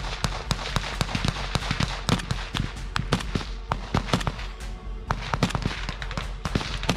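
Sustained small-arms gunfire during a trench assault: rapid, irregular rifle and machine-gun shots, several a second and at varying distances, with no pause.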